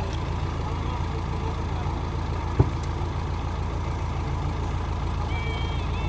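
Diesel engine of a JCB backhoe loader idling steadily, with one sharp knock about two and a half seconds in.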